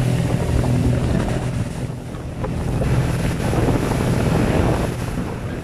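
A small boat's motor running steadily, with wind buffeting the microphone and water rushing past the hull. The level dips briefly about two seconds in.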